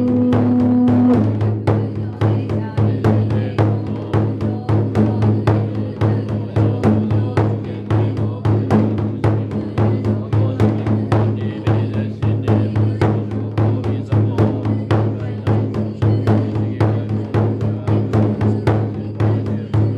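Drum struck in a steady rhythm, about three beats a second, as accompaniment to a Buddhist goma fire ritual, over a steady low drone. A held note ends about a second in.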